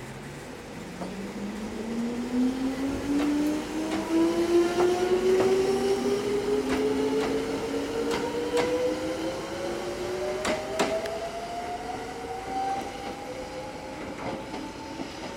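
Kounan Railway 7000-series electric train (ex-Tokyu 7000) pulling away from a station. Its traction motors whine steadily upward in pitch as it accelerates. The wheels clack sharply over rail joints several times.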